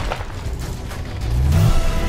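Film-style soundtrack: dramatic music under a low, rumbling explosion sound effect, with a low tone rising in pitch about a second and a half in.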